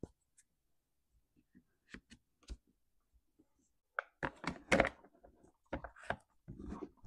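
Light plastic clicks and knocks as the orange top cover of a Stihl MS500i chainsaw is handled and pressed down over the air filter, with a denser cluster of knocks about four to five seconds in as the cover goes on.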